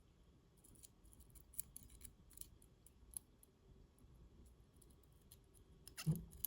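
Faint scattered clicks and light metal scrapes of an Assa Twin 6000 lock's pin cover being worked back on over its pin springs, with a louder cluster of clicks near the end.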